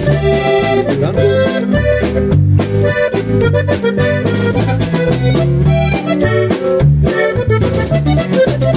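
Instrumental break of a Mexican corrido: an accordion plays the melody over bass notes that change in a steady rhythm.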